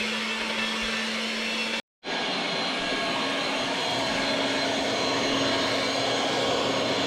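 Electric mixer running steadily at speed, its motor whining as it whips egg whites. It cuts out abruptly for a moment about two seconds in, then carries on at a slightly higher pitch.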